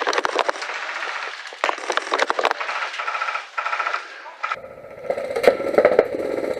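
Rapid runs of sharp clicks, typical of airsoft guns firing in bursts, over a background of voices. The sound changes abruptly about four and a half seconds in, to a fuller, lower mix with more clicks.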